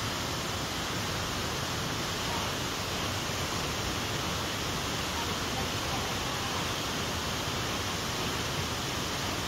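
Steady, even rush of fast-flowing water, with no machine running.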